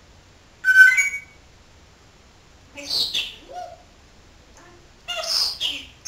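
African grey parrot calling three times: a short pitched whistle about a second in, then two harsher, noisier calls around three and five seconds.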